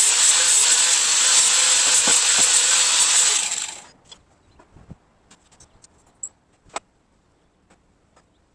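A power tool running loudly under load, cutting or grinding, with a steady high whine in the noise; it cuts off about three and a half seconds in, dying away within half a second, followed by a few small clicks and clinks.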